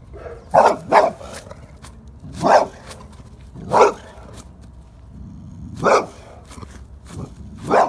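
Boxer dog barking: about six loud single barks, two in quick succession about half a second in, then one every one to two seconds.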